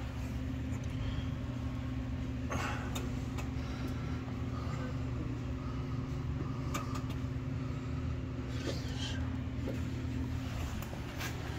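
Steady low machine hum, with a few brief clicks and rustles, the loudest about two and a half seconds in.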